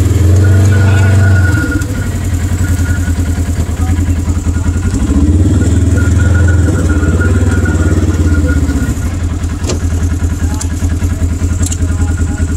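Polaris RZR side-by-side engine idling with a fast, even pulse, revved up and back down twice: once near the start and again about midway.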